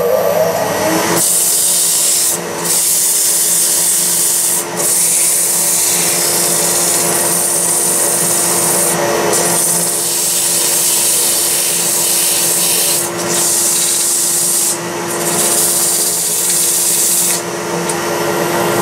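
Sandpaper hissing against walnut spinning on a wood lathe, in long passes broken by brief pauses, over the steady hum of the lathe motor.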